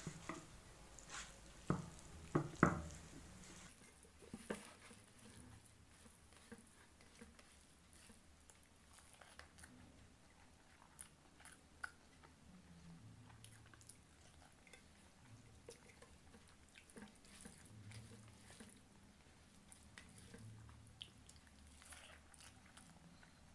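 Eating rice and egg curry by hand: fingers mixing rice in the curry and chewing with small wet mouth sounds, faint, with scattered light clicks and a few louder clicks about two seconds in.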